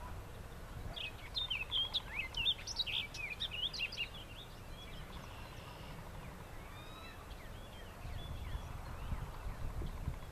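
Bald eagle giving a burst of rapid, high chattering call notes about a second in, lasting a few seconds, then fainter chirps. A low rumble runs underneath and grows louder near the end.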